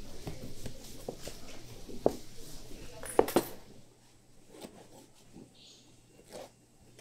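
Gloved hands rolling and pressing soft dough on a floured worktable, a soft rustling with light clicks and a few sharp knocks about three seconds in. After that it goes quieter, with only light ticks as a cleaver presses down through the dough onto the table.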